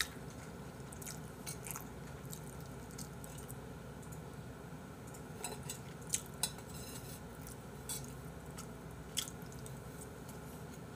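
Quiet eating sounds: a metal spoon lightly clinking against a metal bowl of fried rice, with soft chewing. There are a dozen or so short, light clicks scattered over a faint steady background.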